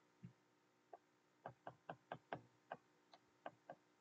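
Faint, irregular taps of a stylus on a tablet screen during handwriting, about ten light clicks.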